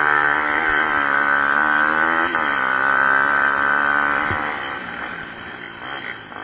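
Pit bike engine revving hard, its pitch climbing, dropping sharply a little past two seconds in, then climbing again, before the sound fades about four and a half seconds in as the bike moves away.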